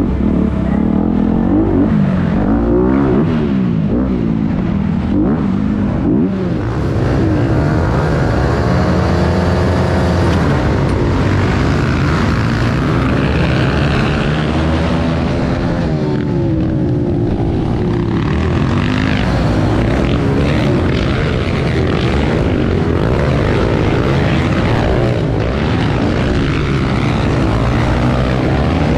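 Onboard sound of a pit bike engine racing around a dirt track, its pitch rising and falling over and over as the throttle is opened and closed through the corners and jumps, with other pit bikes running close by.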